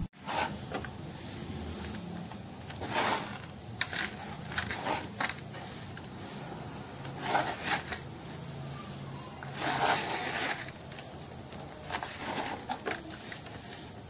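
Clumps of dry, dusty grey sand crumbled and crushed between the fingers in a bowl, giving irregular bursts of crumbling and rustling, with the sand scraping against the bowl's side.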